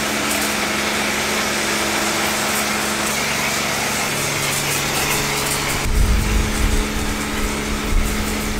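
Pressure washer spraying snow foam through a foam cannon: a steady hiss of spray over the even hum of the washer's motor and pump. About six seconds in, a low rumble joins it.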